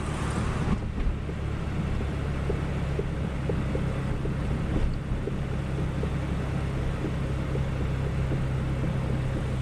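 Geo Metro driving at speed, heard from inside the car: a steady low drone of engine and tyre noise with faint, short knocks mixed in. The owner puts the knock down to the axles or wheels, since it varies with wheel speed and is not from the engine or transmission.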